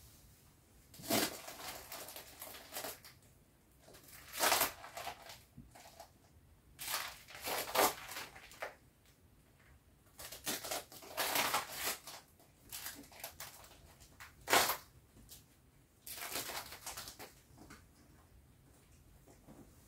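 Folded PVC vinyl of a deflated Intex Wave Rider GP500 inflatable jet ski being unfolded and smoothed out by hand, crinkling and rustling in irregular bursts with short pauses between, and one sharper crackle about three-quarters through.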